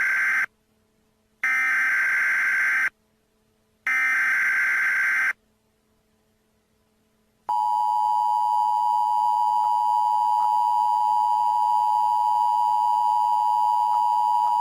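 Emergency Alert System tones: the end of one SAME header data burst, then two more short electronic data bursts about a second and a half each, a pause of about two seconds, and then the steady two-tone EAS attention signal starting about seven and a half seconds in.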